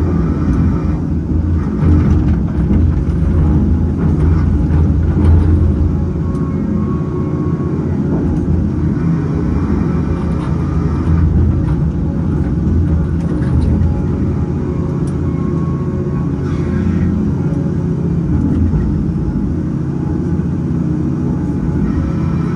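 Cat 568 log loader's diesel engine running steadily under load while its hydraulics work the grapple to pick up and swing pulp logs, with a few faint knocks.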